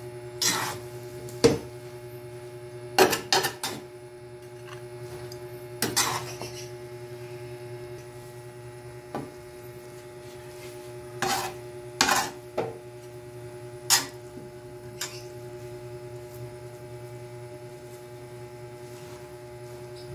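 Metal tongs clanking and scraping against a large aluminium pan as stir-fried rice noodles are tossed: irregular sharp clanks, about ten in all, over a steady low hum.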